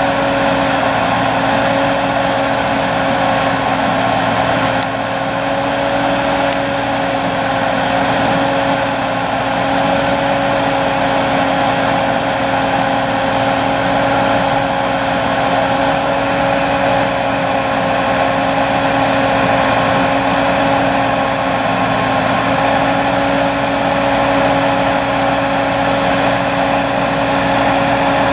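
Small farm tractor's engine running steadily at one constant speed, its pitch holding level throughout.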